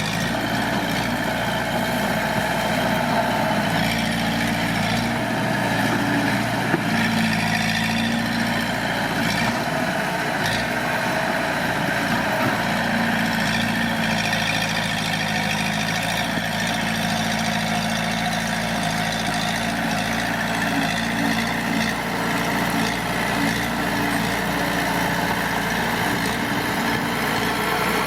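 Heavy diesel engine of earthmoving machinery running steadily, its pitch rising a little twice as it works under load.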